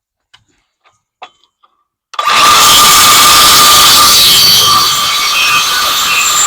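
Power saw cutting a kerf into a wooden framing board: after a few light clicks, the saw starts about two seconds in and runs loud and steady with a constant whine as it cuts.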